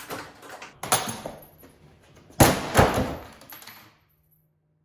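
Metal knocks and bangs from the car's bodywork being worked on. There is a knock about a second in, then two loud bangs close together near the middle that ring and die away, and the sound cuts off abruptly near the end.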